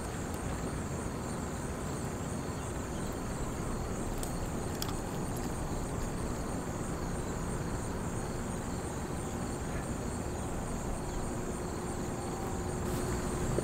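Steady outdoor ambience: a constant high insect chorus over a low, even rumble. A couple of faint clicks come about four to five seconds in.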